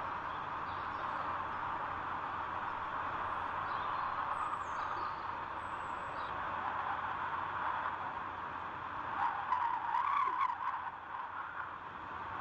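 Steady wind noise with faint, short, high bird chirps now and then. The noise swells briefly about ten seconds in.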